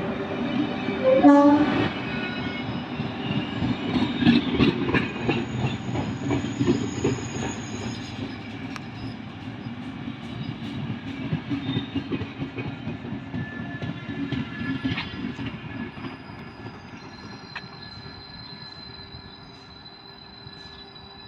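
A train running past and moving away, its rumble and wheel clatter fading steadily. A short rising tone sounds about a second in, and a faint, steady, high-pitched squeal comes in during the second half.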